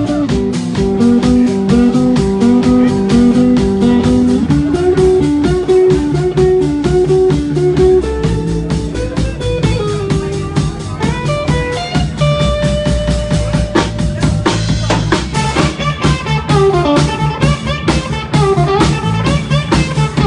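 Live blues-rock trio playing an instrumental passage: electric guitar lead over electric bass and a steady drum-kit beat. In the second half the guitar notes bend up and down.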